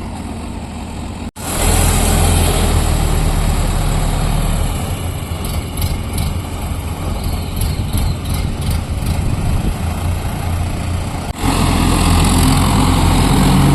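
Heavy diesel engine of construction machinery running steadily. The sound breaks off for an instant just over a second in and comes back louder, with a few faint rattles in the middle.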